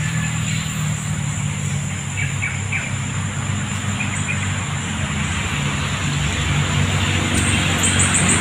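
Outdoor forest ambience: a steady low drone with a thin steady high whine over it, a few short bird chirps about two and four seconds in, and a fast run of high chirps near the end.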